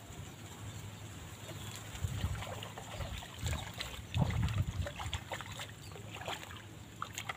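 Water splashing as a hooked fish thrashes at the surface while it is played in on a long fishing pole, with heavier splashes about two and four seconds in.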